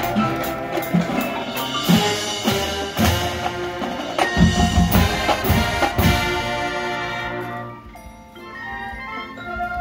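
Marching band playing, winds and drums together with heavy drum hits. About eight seconds in the full band drops away, leaving softer mallet percussion playing on its own.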